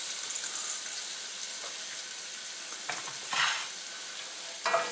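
Chopped mixed vegetables sizzling as they fry in hot oil in an enamelled pot, stirred with a wooden spatula, with a few brief scrapes in the middle and a knock near the end.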